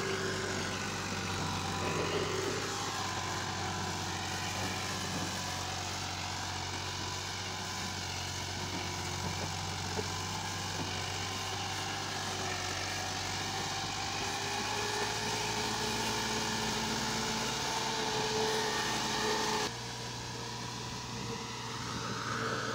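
Massey Ferguson 360 tractor's three-cylinder diesel engine running steadily under load, pulling a heavily loaded trolley through soft sandy ground. The sound steps a little quieter about three-quarters of the way through.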